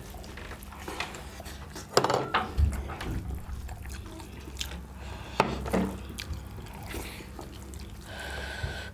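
Wet eating sounds from curry and rice eaten by hand: squelching, smacking and slurping, with a few sharper clicks about two seconds in and again just past five seconds.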